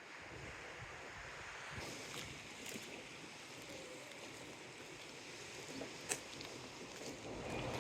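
Steady hiss of wind and sea water, with a faint click about six seconds in.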